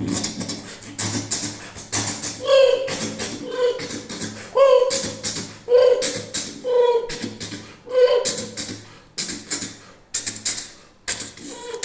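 Vocal mimicry of a fast-running express train: rhythmic mouth-made chugging and hissing bursts, mixed with short horn-like hooting notes about once a second.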